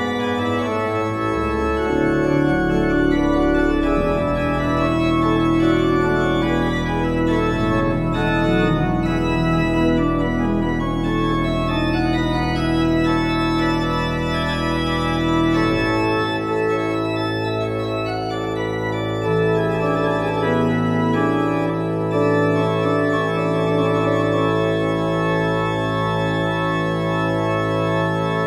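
Church organ played in recital: many sustained notes sounding together, with deep pedal bass notes under them that drop out a little past halfway while the upper voices play on.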